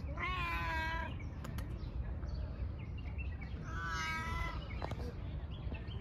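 Cat meowing twice: two drawn-out meows about three and a half seconds apart, over a steady low rumble.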